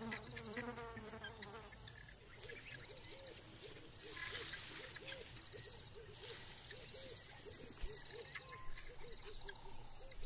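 Faint bush ambience: insects buzzing, with a steady high drone and short repeated trills. A low, short call repeats about twice a second through most of it. A brief pitched call with a falling tone is heard at the start.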